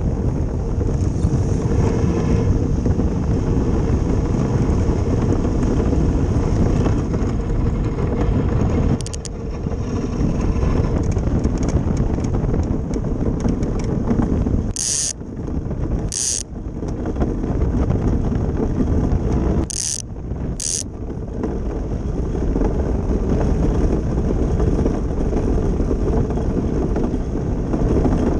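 Steady rushing rumble of an ice boat's runners gliding over lake ice, with wind on the microphone. A few brief high hisses cut in a little past halfway.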